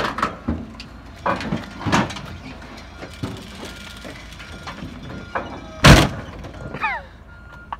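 Wrecked Ford Crown Victoria police car being pushed off a car trailer: metal knocks and clanks, with one loud bang about six seconds in as the car comes down off the trailer. A reversing beeper beeps steadily behind it.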